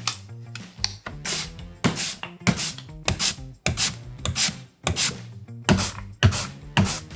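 Raw potato pushed back and forth across a stainless-steel mandoline slicer with a julienne blade, a rasping scrape with each stroke, about two strokes a second. Background music plays underneath.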